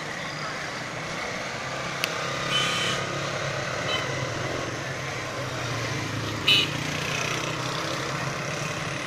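Street traffic: vehicle engines running past with a steady hum, a short hiss about two and a half seconds in, and a louder brief sharp sound about six and a half seconds in.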